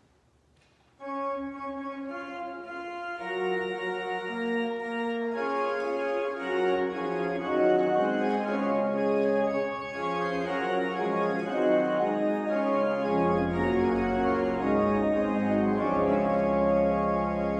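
Church organ begins playing about a second in, after near silence, holding chords in slow steps that thicken as more notes come in. Deep bass notes join about two thirds of the way through.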